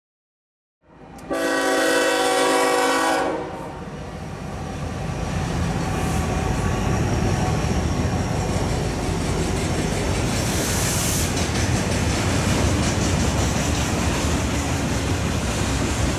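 Diesel locomotive horn on a Union Pacific freight train led by a GE ES44AH, sounding a chord for about two seconds starting a second in. It is followed by the steady rumble of the locomotives and train running by, with a brief high hiss about ten seconds in.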